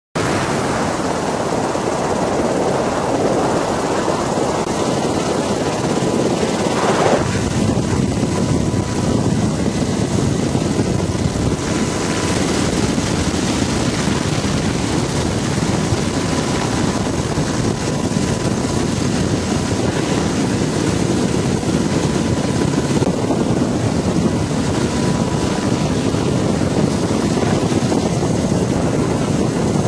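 Black Hawk helicopter running steadily, its rotor and engine noise a continuous loud wash with a faint steady whine.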